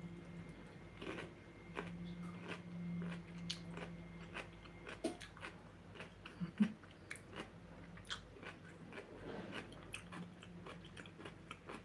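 A person biting into and chewing food: scattered small crunches and mouth clicks and smacks, with no talking.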